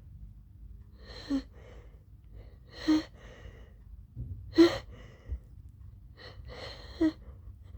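A woman's short, sharp gasps, about four of them, each with a breathy tail: the catching inhales of a sneeze building up, with no sneeze yet.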